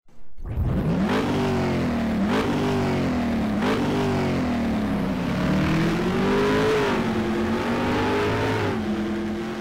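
A car engine accelerating hard through the gears. The pitch climbs and drops sharply three times in the first four seconds, then keeps rising and falling at high revs.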